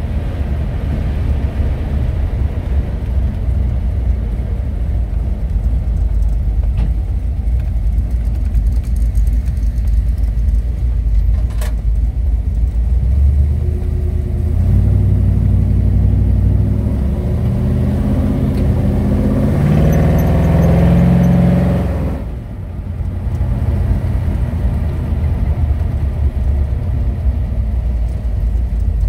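Ford Bronco engine and exhaust heard from the driver's seat while driving: a steady low rumble. About halfway through, the engine pitch climbs in steps under acceleration, then drops suddenly as the throttle is lifted, and it settles back to a steady run.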